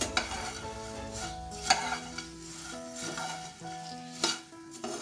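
A spatula stirring dry puffed rice and peanuts in a nonstick pan: a steady dry rustle of the grains, with three sharper clacks of the spatula against the pan, the second the loudest. Soft instrumental music plays underneath.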